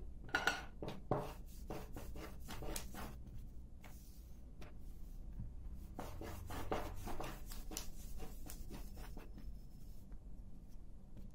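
Wooden rolling pin rolling back and forth over a small round of dough on a starch-dusted tabletop. It makes a run of quick rubbing strokes, with a quieter pause partway through.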